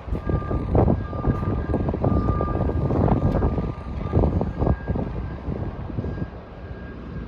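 A steady machine drone over a heavy low rumble, with a thin steady whine above it, easing off toward the end.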